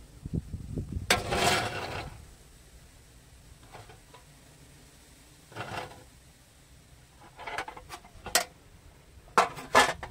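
Thin aluminium oven baking pan being handled and set down on a tile floor: a scraping rustle about a second in, then scattered knocks and clicks, the sharpest near the end.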